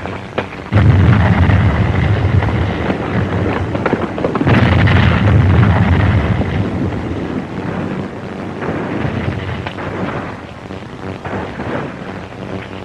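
Two booms of distant artillery fire, one about a second in and another around four and a half seconds in, each rumbling away over a couple of seconds.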